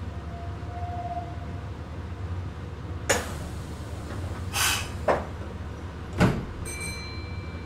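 Meitetsu 6800-series electric train car, with the steady low hum of its equipment, and several sharp knocks and thumps of its sliding doors, typical of a station stop. A brief high tone sounds near the end.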